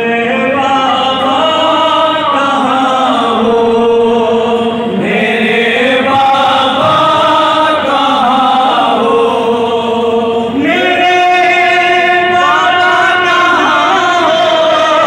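An unaccompanied noha, a Shia lament for Muharram, sung by a man into a microphone in a long, drawn-out mournful melody with held and sliding notes. Other men's voices join in with him, and the singing grows fuller at about five and eleven seconds in.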